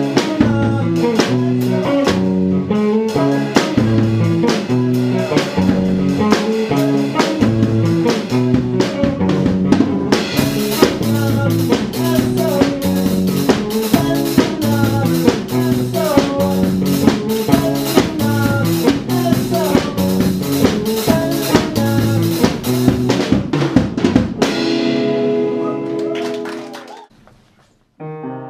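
Drum kit played in time with guitar music: snare and bass drum strokes with cymbals over steady bass and guitar notes. About 24 seconds in, the song ends on a final hit that rings out and fades over about three seconds.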